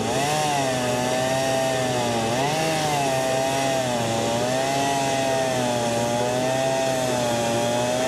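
A gasoline chainsaw running and cutting into a tree trunk, with its engine pitch wavering up and down throughout and dipping then recovering about two and a half seconds in.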